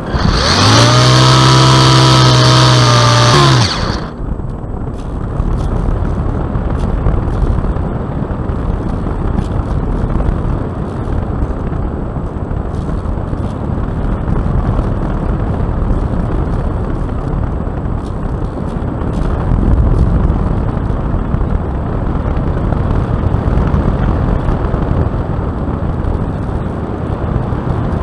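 Steady rush of airflow and wind over a dashcam mounted under a Piper Cub in gliding flight. Near the start, a loud pitched tone with many overtones sounds for about three seconds, rising slightly at first and dropping away as it stops.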